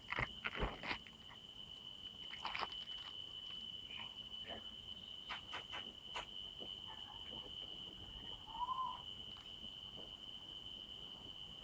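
Hands prying apart a durian's spiny husk, giving sharp cracks and clicks in the first second and a few more later, over a steady high-pitched cricket trill. A short chirp comes about two-thirds of the way through.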